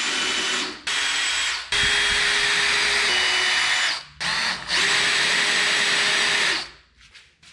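DeWalt cordless drill running in five bursts, each half a second to two seconds long with brief pauses between, with a steady motor whine. It is boring pilot holes in pine boards for 2-inch screws.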